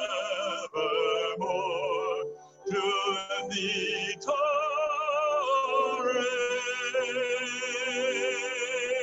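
Church music: a solo voice singing with wide vibrato over steadily held accompanying notes, in short phrases and then one long held note from about four seconds in.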